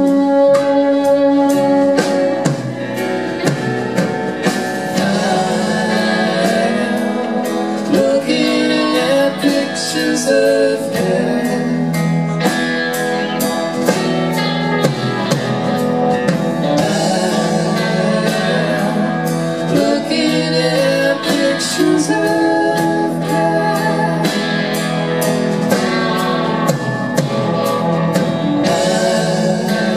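Live band playing: electric guitars, bass, piano and drum kit together, with a steady beat of drum and cymbal hits about twice a second.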